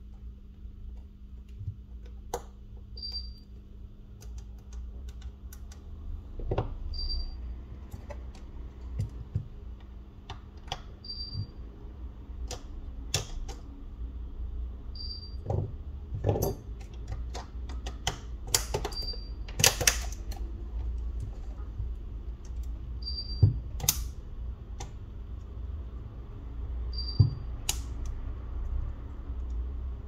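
Irregular light clicks and taps of small repair tools and parts being handled on a smartphone during a button flex cable replacement. A short high beep repeats about every four seconds over a steady low hum.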